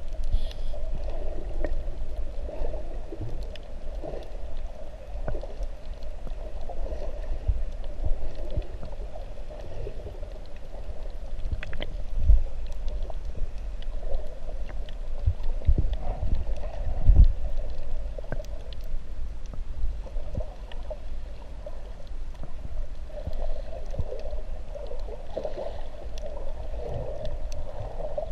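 Muffled underwater sound picked up through an action camera's waterproof housing while snorkeling: a steady low rumble of moving water, with a couple of dull thumps about halfway through.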